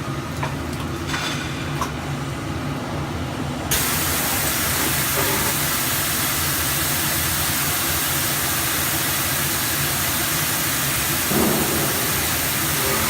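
A machine hum with a few light clicks, then about four seconds in a loud, steady gas hiss comes on suddenly, as of a brazing torch flame lit on the rotary welding jig, and holds steady.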